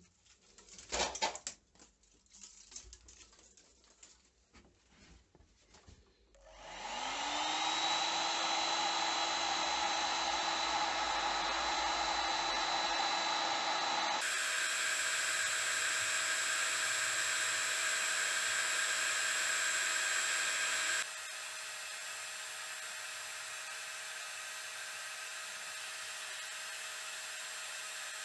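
Handheld electric heat gun switched on about six seconds in, its fan whining up to speed and then running steadily with a rushing blow. It is heating a copper-wire coil so that a plastic bottle strip can be drawn through it into a tube. Before it starts there are a few light handling clicks and one sharper knock, and the blowing drops somewhat in level about three-quarters of the way through.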